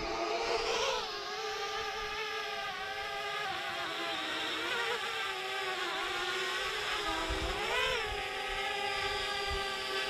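Parrot Bebop 2 quadcopter's motors and propellers whining in flight, the pitch mostly steady but rising briefly twice, about a second in and again late on, as the throttle changes.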